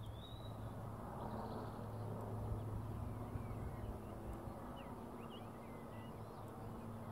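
Distant helicopter hovering with an underslung load, a steady low drone, with small birds chirping faintly over it.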